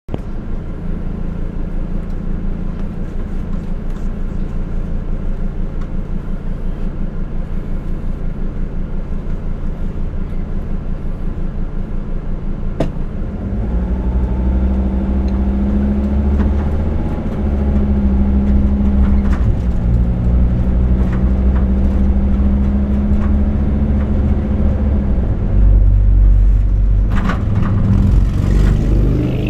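Car engine heard from inside the cabin, idling with a steady low hum while stopped. About halfway through, the car pulls away and the engine runs louder under way, its pitch shifting a few times. There are a few sharper noises near the end.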